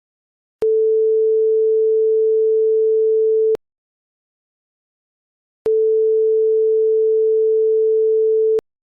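TV buzzer sound effect: a steady mid-pitched pure tone sounds twice, each time for about three seconds, starting and stopping abruptly with silence in between.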